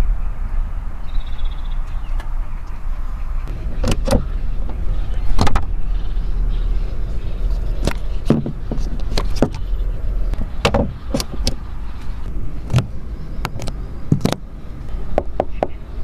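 Handling noises from a BYD Seagull's body fittings, such as the tailgate, the charge-port flap and the port's plastic cap: a string of scattered sharp clicks and knocks, some in quick pairs, over a steady low rumble.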